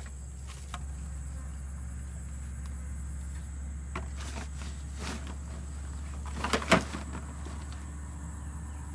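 Knocks and clatters from long tube eel traps being handled and baited, with a louder cluster of three knocks about two-thirds of the way through, over a steady low rumble.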